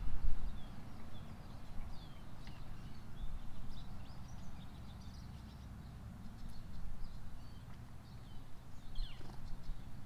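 Small backyard songbirds calling in short, high chirps, with one longer falling note just after nine seconds, over a steady low rumble that is loudest near the start.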